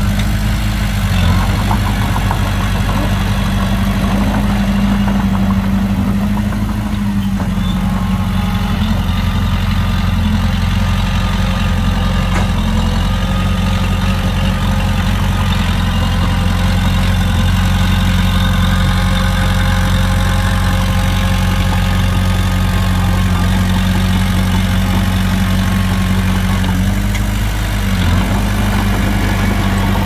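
Heavy diesel engine of earthmoving machinery running steadily with a deep, even hum, its speed shifting slightly about a second in and again near the end.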